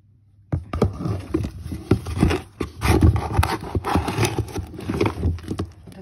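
Last of the powder detergent shaken and tipped out of a nearly empty box into a washing machine's detergent drawer. A dense, irregular scraping with many small knocks starts about half a second in.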